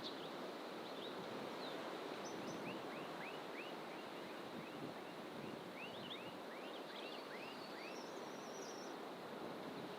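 Wild birds calling in fynbos bush: a run of short, quickly repeated whistled notes, about three a second, from about two seconds in to nearly the end, with a higher warbling phrase near the end, over a steady rushing background noise.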